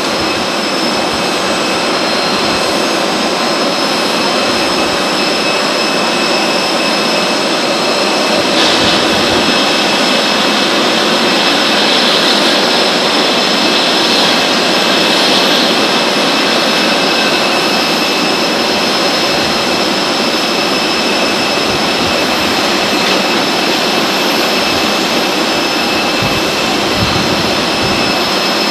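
Jet engines running on an airport apron: a steady high whine over a broad rush, swelling slightly for several seconds about a third of the way in.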